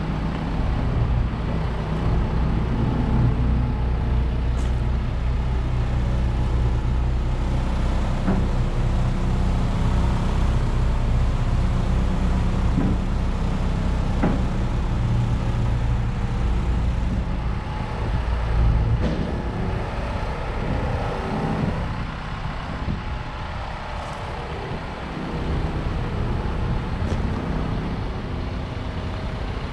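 Isuzu NPR HD box truck's engine idling steadily, louder for the first two-thirds and a little softer near the end.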